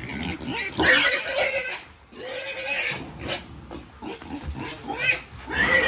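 Wild boar squealing in repeated loud, harsh bursts, distress calls from a pig being caught and held. The longest squeals come about a second in and again near the end.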